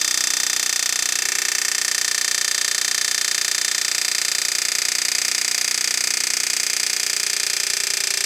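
Power tool running steadily in one long unbroken run with a fast, even chatter, working a seized piston loose in a locked engine.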